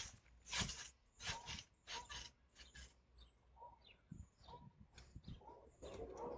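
Backyard trampoline mat and springs giving a few rhythmic creaking bounces, about one and a half a second, that fade away over about three seconds as a body settles on the mat after falling onto it.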